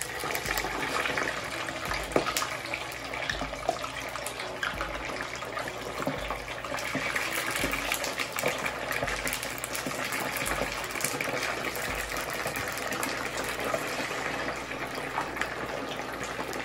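Whole fish deep-frying in hot oil in a wok, a steady sizzle with many small crackles and pops.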